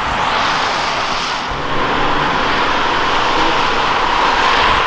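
Cars on wet tarmac: a steady hiss of tyres through standing water, with engine noise underneath and no single standout event.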